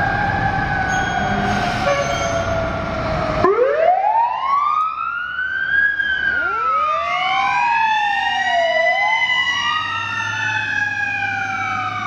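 Fire truck sirens. For the first few seconds one siren holds a fairly steady pitch over a low rumble. About three and a half seconds in the sound changes abruptly to several sirens wailing together, each rising and falling slowly and overlapping the others.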